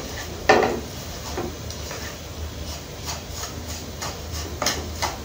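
A spatula stirring and turning vermicelli in a frying pan, knocking and scraping against the pan several times, loudest about half a second in.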